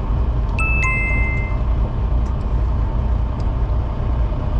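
Fishing boat's engine running with a steady low drone, and a brief two-note beep about half a second to a second in.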